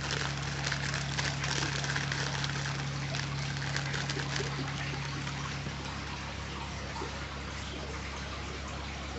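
Water trickling and splashing lightly in an aquarium, with fine crackling, over a steady low hum. The water sound eases off slightly about halfway through.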